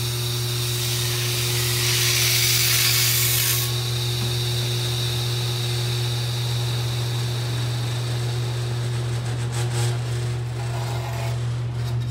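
Flatbed glass grinder running, its wheel spinning with a steady low motor hum. About a second in, a louder gritty hiss lasts two or three seconds, and near the end a metal knife scrapes and taps as it stirs the silicon carbide grit in the hopper.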